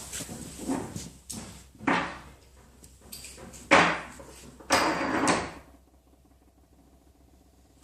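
A few short scraping and rattling handling noises, the loudest and longest about four to five seconds in, then it goes quiet.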